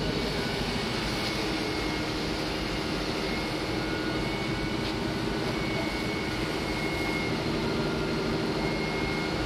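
Steady low engine drone with a faint steady hum, unbroken and even in level.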